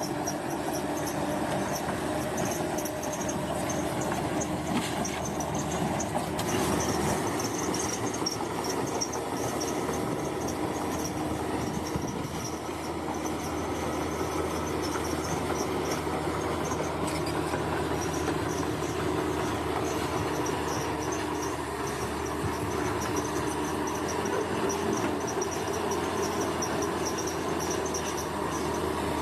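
Heavy earthmoving machine's diesel engine running steadily under load, with a continuous rumble. Insects chirr in a high, pulsing band over it.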